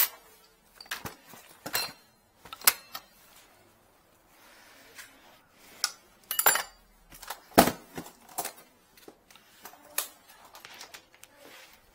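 Hand tools clicking and clattering as they are rummaged through in a hard aluminium tool case, a string of irregular knocks with the loudest about seven and a half seconds in.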